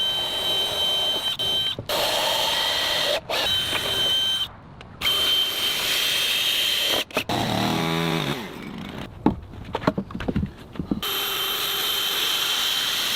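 Power tools running on timber in a string of short snippets that cut off abruptly, with a thin high whine over the motor noise. About eight seconds in, a motor's pitch slides down and back up.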